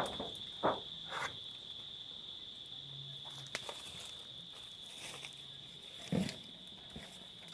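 Steady high-pitched insect chirring, like crickets, holding one even pitch, with a few scattered short knocks and crackles near the start, around the middle and near the end.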